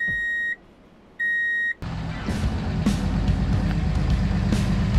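Two electronic reversing-alarm beeps, each about half a second long. Then, from about two seconds in, a pickup truck towing a fifth-wheel trailer runs along a gravel road with a steady low rumble and scattered small clicks.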